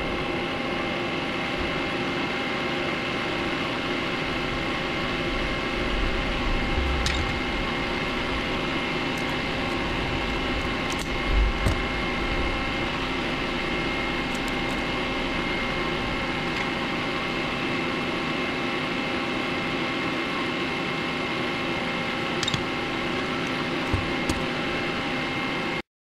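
Electric fan running with a steady whirring hum made of several fixed tones. A few light clicks and two dull knocks come from wires and tools being handled, the knocks about eleven seconds in.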